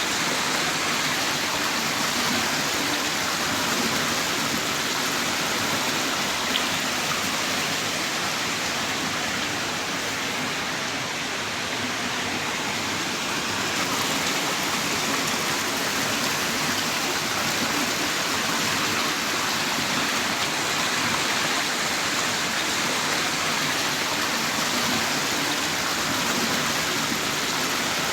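Heavy rain downpour, a steady dense hiss of falling rain with a few faint drop ticks.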